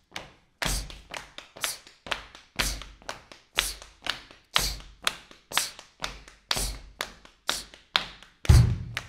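Rhythmic percussion for a counting rhythm game: sharp taps or claps in a steady beat, an accented stroke about once a second with lighter strokes between. Some strokes carry a low thump, the heaviest near the end.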